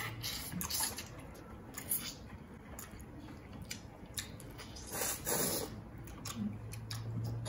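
Close-up eating sounds: wet sucking and chewing as meat is pulled from crab legs, with small scattered clicks of shell and a louder wet burst about five seconds in.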